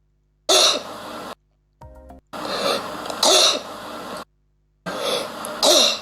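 A child with croup (laryngotracheobronchitis) coughing in three harsh spells, each opening with a loud bark: the horse-like cough typical of croup. A brief pitched squeak comes between the first two spells.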